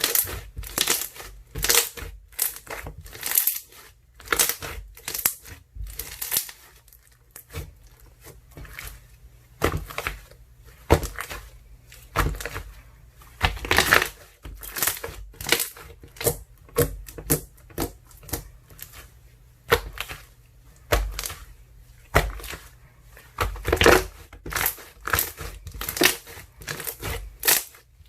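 Ice slime mixed with soothing gel being squeezed and pressed by hand, giving irregular crackles and pops, several a second, with louder squeezes about halfway through and again near the end.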